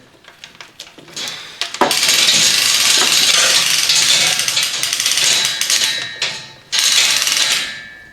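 A handheld power tool running loudly with a harsh mechanical rattle for about six seconds, with a brief break near the end, after a second of faint tool clicks.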